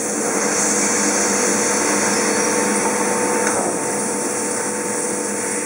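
Steady machine hum with a high hiss from a Finn-Power F5 CNC turret punch press and its Express sheet loader, running between jobs with no punch strokes.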